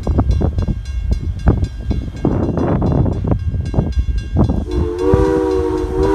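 Wind buffeting the microphone with low rumbling gusts, then about two-thirds of the way in the ex-CN 89 steam locomotive's whistle sounds, a steady chord of several tones held to the end.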